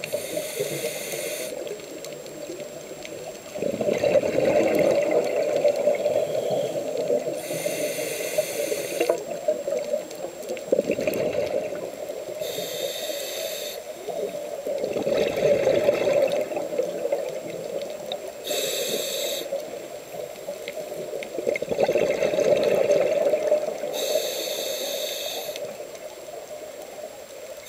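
A scuba diver breathing through a regulator underwater: a short hiss on each inhale, then a longer burble of exhaled bubbles, about every six seconds.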